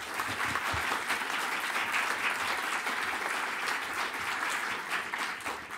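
Audience applauding: many hands clapping at a steady level, fading near the end.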